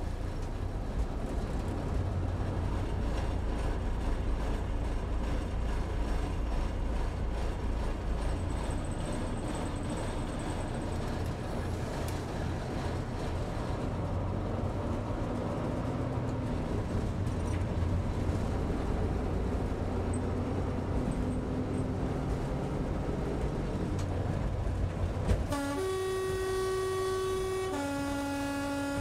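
Diesel railcar heard from its driving cab, its engine and running gear making a steady low drone. Near the end the two-tone roof horn sounds: a higher note held about two seconds, then a lower note held about two seconds.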